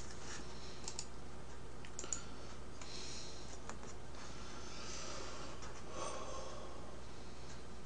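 Quiet room tone with a steady low hum, a few faint scattered clicks and soft breaths.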